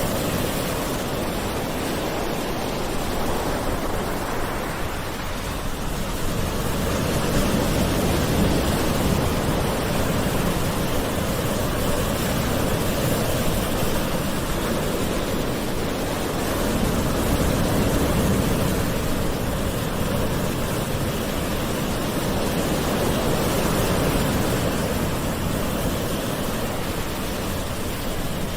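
Gentle ocean waves washing ashore in a continuous rush, swelling and easing slowly every few seconds.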